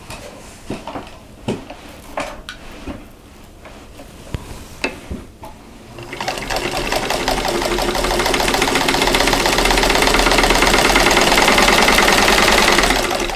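Vintage electric Singer 15-91 sewing machine stitching a seam: a few soft clicks at first, then about six seconds in the machine starts, builds up to a steady fast stitching rhythm with a low motor hum, and stops just before the end.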